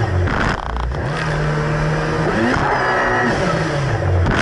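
Kawasaki Ultra 300X jet ski's supercharged four-stroke engine running hard over rough chop. Its pitch dips and climbs back up twice. Water spray and wind hiss run through it, with a sharp splash about half a second in.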